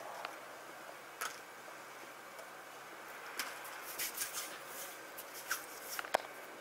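Paper towel rustling and crinkling as freshly fried churros are handled on it, in a few short scattered bursts, with a sharp click near the end.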